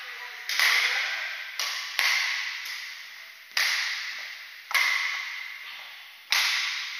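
Badminton rally: rackets striking a shuttlecock about six times, one sharp hit every second or so, each followed by a hall echo that dies away.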